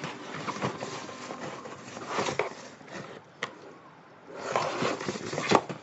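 Irregular handling noises: light knocks, rustling and scraping, with a sharp click about three and a half seconds in and another near the end.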